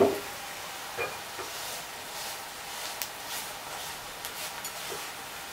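Dry buckwheat being stirred with a spatula in a frying pan of hot oil with sautéed onion and carrot: a faint sizzle under soft scraping, with a light click about a second in.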